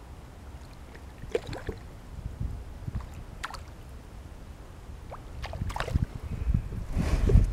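Small knocks and taps of movement in a kayak on the water, over a low rumble that grows louder near the end.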